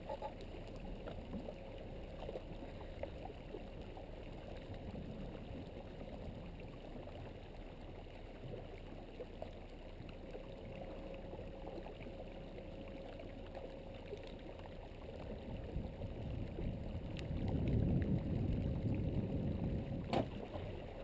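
Low, steady rush of water along a sailboat's hull as it moves slowly through ice-strewn water, swelling louder about three quarters of the way through.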